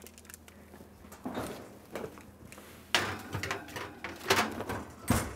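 A baking pan being put into a kitchen range's oven: a series of clunks and metal knocks as the oven door opens and the pan goes onto the rack. The oven door shuts with the loudest knock near the end.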